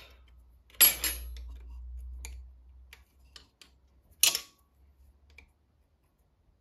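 Metal hand tools clinking and clanking on metal: two sharp clanks, one about a second in and one just past four seconds, with lighter ticks between.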